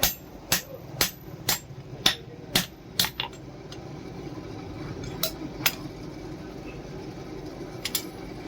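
Hand hammer striking steel on an anvil, each blow ringing metallically: a steady run of blows about two a second for the first three seconds, then a few scattered strikes.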